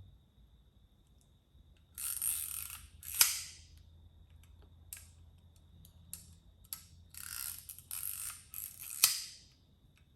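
Voigtländer Vito BL 35 mm camera's winding and shutter mechanism worked by hand: two stretches of ratcheting and several sharp clicks, the loudest about three seconds in and again near the end. The mechanism is sticking.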